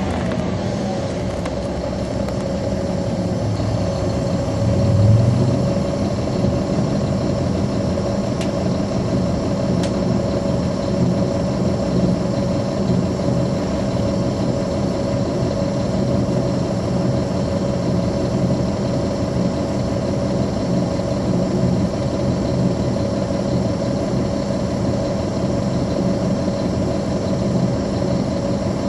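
Caterpillar C13 ACERT inline-six diesel engine of a NABI 416 transit bus heard from on board, running steadily with a low drone and a steady whine above it. A brief low swell comes about five seconds in.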